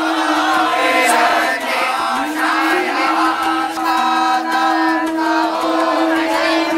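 Voices chanting Vedic mantras together on a long held note, the pitch dipping and climbing back about two seconds in.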